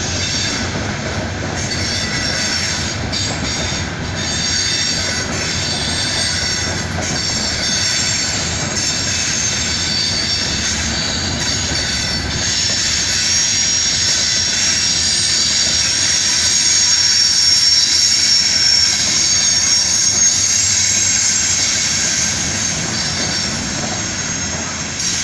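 Loaded CSX open hopper cars of a rock train rolling past: a steady rumble of steel wheels on rail, with a few wheel clicks over rail joints in the first few seconds. High-pitched wheel squeal grows louder through the second half and is loudest a little past the middle.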